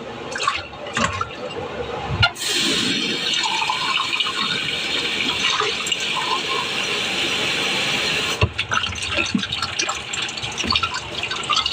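Kitchen tap running water into a sink for about six seconds, starting and stopping abruptly, with light handling clatter before and after.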